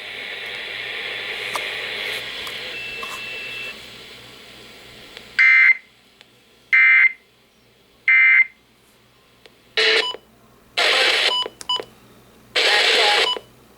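Three short, identical bursts of Emergency Alert System end-of-message data tones, about a second and a half apart, signalling the end of the alert. Before them a hiss fades away, and near the end a few louder bursts of other broadcast audio come in.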